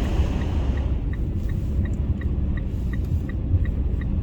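A car's engine and tyres rumble steadily, heard inside the cabin. Over it runs an even ticking about three times a second, typical of the turn-signal relay clicking.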